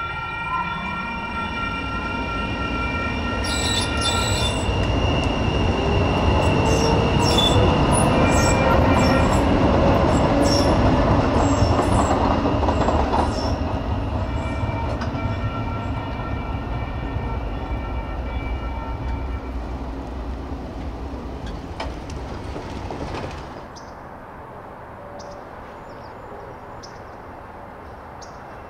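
A light rail train passing a level crossing: its loud rolling rumble carries a whine that rises in pitch over the first dozen seconds, while the crossing's warning bells ring. The train noise drops away suddenly about 23 seconds in, leaving the bells fainter.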